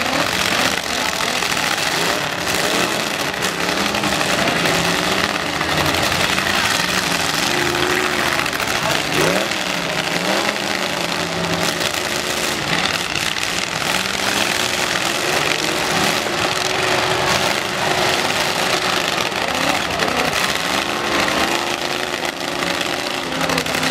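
Several demolition derby pickup trucks' engines revving hard at once, their pitch rising and falling over one another in a continuous din as the trucks push and ram in the pit.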